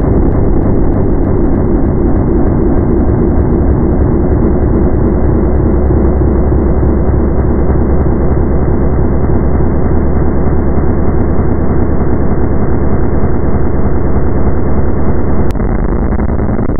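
Harsh noise music: a loud, dense wall of noise over a steady low drone. A sharp click comes about fifteen and a half seconds in, after which it is a little quieter.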